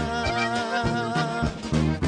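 Live band music in a break between sung lines: a button accordion plays a melodic fill over a repeating bass note.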